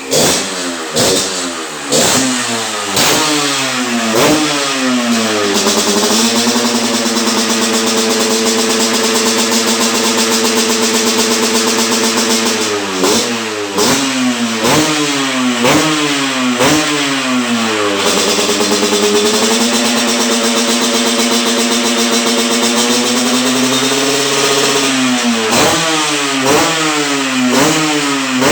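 Yamaha RX King's two-stroke single-cylinder engine breathing through a GTX aftermarket exhaust, revved in quick blips about once a second. Twice it is held at high revs for several seconds before the blipping resumes.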